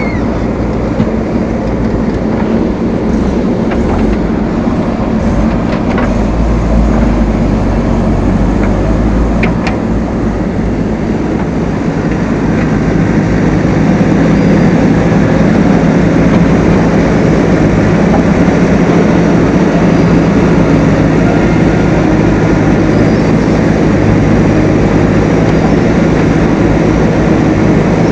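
Heavy diesel engines of earthmoving machinery running steadily under work, getting louder about halfway through, with a few faint clicks or knocks in the first ten seconds.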